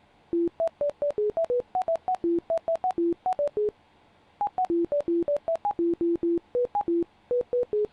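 Computer-generated beeps from bioresonance (NLS) software running a treatment: a rapid series of short single tones, about five a second, jumping between several pitches with a click at each start, pausing briefly around a second in and again about halfway.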